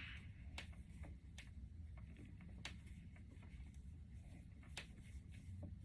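Faint, irregular ticks and light rustling of synthetic wig hair being plaited by hand, over a low room hum.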